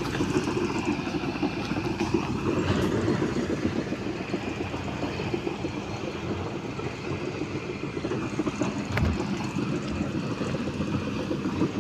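Excavator's diesel engine running steadily close by, a continuous low rumble.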